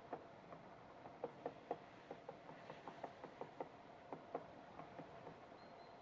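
Great spotted woodpecker pecking at a dead tree stump: a run of faint, sharp wooden taps at about four a second, unevenly spaced. It is foraging, not drumming.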